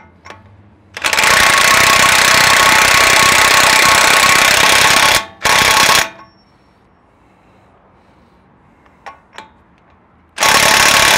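Impact wrench with a 39 mm socket hammering the axle nut onto a Toyota Land Cruiser 200's front CV (Birfield) spindle, run on its lower power setting to seat the nut. A long burst of about four seconds, a short burst, then after a pause another burst near the end.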